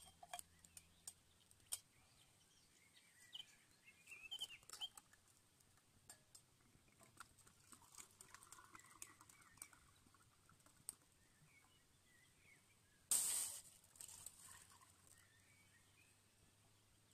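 Quiet camp-cooking sounds: scattered light clicks and clinks of metal cups and a bottle being handled, with birds chirping faintly in the background. A short hiss about thirteen seconds in is the loudest sound.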